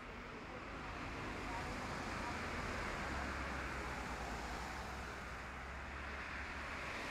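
A motor vehicle passing on the road, its engine and tyre noise getting louder over the first second or two, with a low rumble strongest in the middle.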